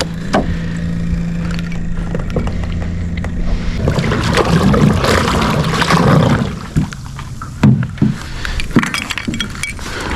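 Electric trolling motor on a small boat running with a steady low hum for the first few seconds, then a stretch of rushing, churning water with scattered knocks against the boat.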